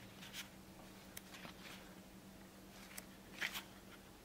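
Pages of a thick paper booklet being turned by hand: several brief soft swishes and rustles, the loudest about three and a half seconds in, over a faint steady hum.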